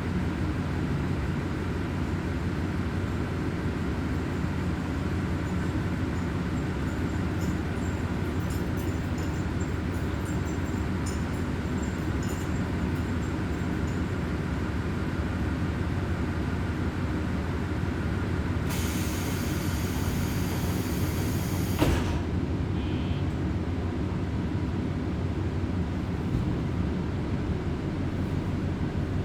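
Kominato Railway diesel railcar running on the line, heard from inside the car as a steady low engine and rolling hum with faint ticks. About two-thirds of the way through, a hiss sounds for about three seconds and ends in a sharp click.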